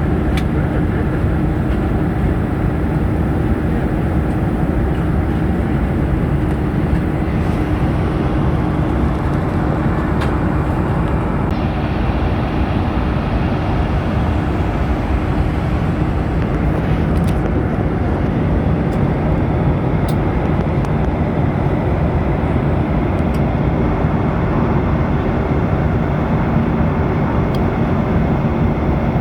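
Steady cabin noise inside a Boeing 737-900ER airliner: an even rush of engine and air noise with a constant low hum, holding level throughout.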